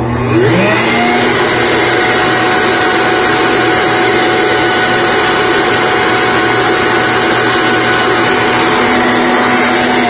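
Leaf blower running at full speed, forcing air through a clothes-dryer vent duct to blow lint out. Its motor whine rises in pitch during the first second as it spins up, then holds steady.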